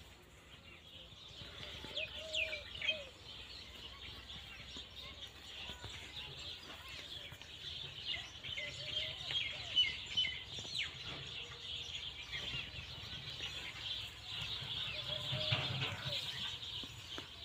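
Many small birds chirping continuously, with a lower call repeating three times, about six seconds apart.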